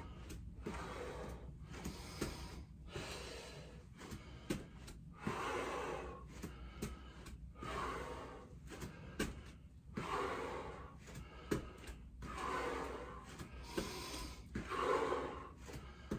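A man breathing hard and rhythmically from exertion during lunges, a loud, noisy breath about once a second, with a few light taps in between.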